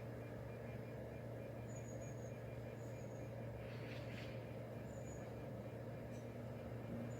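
Steady low hum, with several short high-pitched chirps and a brief hiss about four seconds in.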